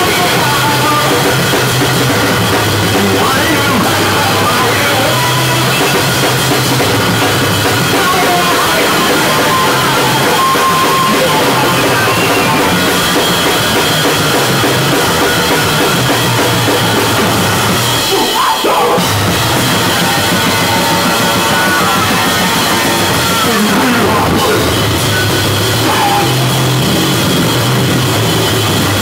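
Noise-rock duo of drum kit and electric bass guitar playing live, loud and distorted: fast, dense drumming and cymbals under a sliding, heavily effected bass, with a brief break about two-thirds of the way through.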